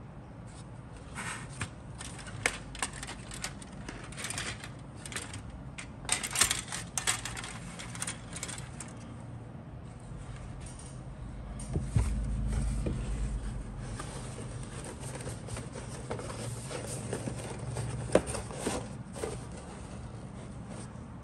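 Handling noise from a plastic model kit and its cardboard box: scattered clicks, taps, rustles and scrapes of plastic sprues being moved. A dull thump with a low rumble comes about halfway through.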